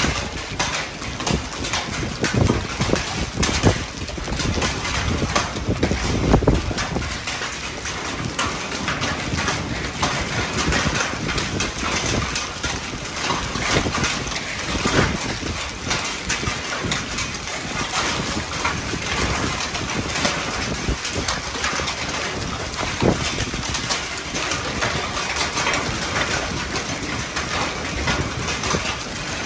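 Marble-size hail and rain falling onto pavement, a dense, steady crackle of many small hits.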